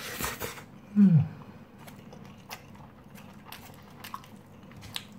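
A person chewing a mouthful of rice, with scattered soft mouth clicks and a plastic spoon scooping in a styrofoam box. A short falling hum comes about a second in.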